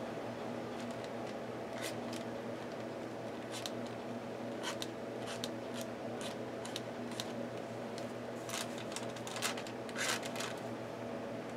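Short scratchy strokes of a white paint marker's tip across a journal page, coming every second or so and thickest near the end, over a steady low hum.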